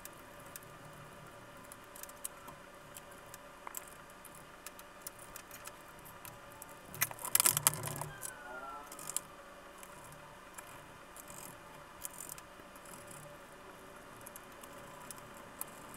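Faint, sped-up clicking and clattering of small plastic and metal laptop parts and screws as the battery is seated, the back cover fitted and the case screws driven in, with a louder flurry of clicks about seven to eight seconds in.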